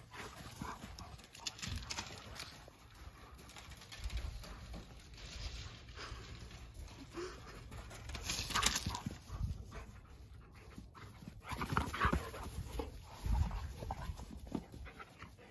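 Great Pyrenees dog panting as it plays, mixed with irregular rustling and low bumps that come and go, loudest about halfway through and again near 12 seconds in.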